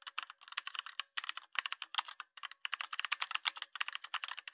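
Computer keyboard typing sound effect: rapid key clicks in runs broken by short pauses.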